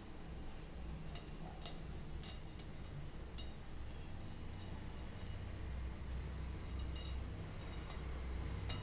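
Light clicks and clinks of cookware being handled, about eight scattered through the stretch, over a low steady hum.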